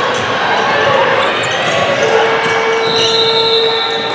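Gym noise at a basketball game: a steady din of crowd and court sounds with scattered ball bounces. In the second half two steady tones, one low and one high, hold for a second or two.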